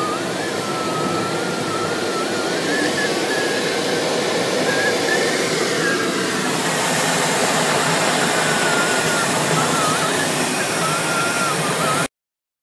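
Steady rush of airflow over a Glasflügel Mosquito 303 sailplane's cockpit in flight, with a thin tone wavering up and down in pitch above it. The rush grows louder and hissier about halfway through, then cuts off abruptly near the end.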